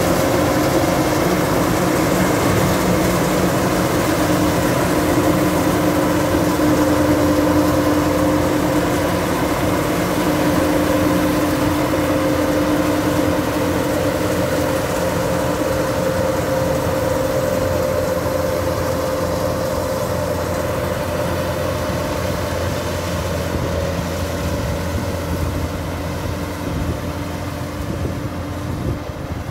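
Kubota DC-105X rice combine harvester running under load as it cuts and threshes standing rice: a steady diesel engine and machinery drone that fades slowly over the second half as the machine moves away.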